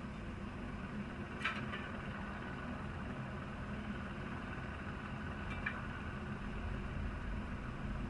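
Steady low rumble with a faint engine-like hum, broken by two sharp ringing clinks of metal on steel, about one and a half seconds in and again near six seconds, as ironworkers handle the steel spire sections and rigging.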